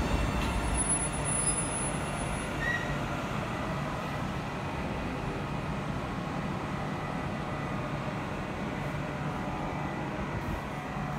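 Ottawa LRT Alstom Citadis Spirit light rail train rumbling on the far track. It is louder at first, dies down over about the first second, then runs on as a steady low rumble with a faint hum, echoing in the underground station.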